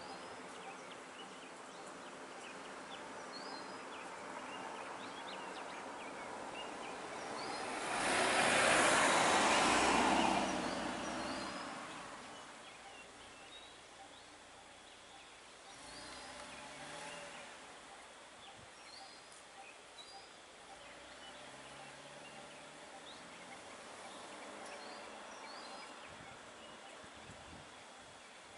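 A car passing close by about eight seconds in, its tyre and engine noise swelling and fading over about three seconds, with a fainter vehicle swell around sixteen seconds. Small birds chirp in the background.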